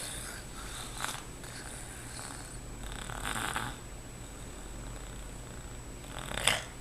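Baby snoring softly: a steady low, purr-like rumble with a few breathy puffs every second or two. A single sharp click near the end.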